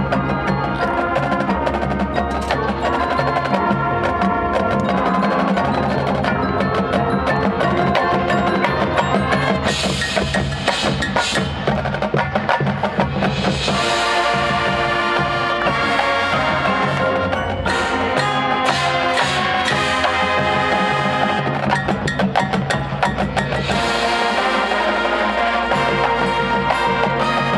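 Marching band playing a competition show, with mallet percussion and drums prominent and sustained band chords. There are bright swells at about 10, 14 and 24 seconds in.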